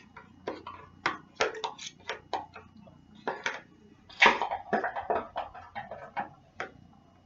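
A metal spoon stirring a thick cream in a plastic jar, with irregular scrapes and clicks against the sides, the loudest about four seconds in.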